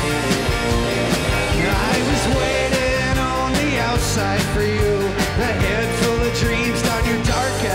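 Live rock band playing at a steady level: acoustic and electric guitars, bass, keyboard and drums. A male lead voice sings over the band.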